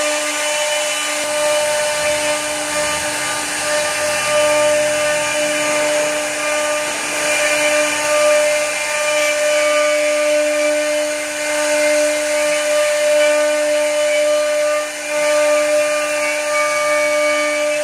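Spindle motors of a multi-head rotary-axis wood CNC router running together with a steady high whine, their bits routing into solid wooden cylinders with a continuous hissing cutting noise.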